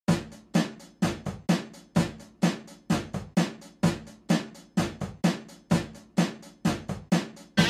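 Background music: a drum kit playing a steady kick-and-snare beat on its own, about two to three hits a second.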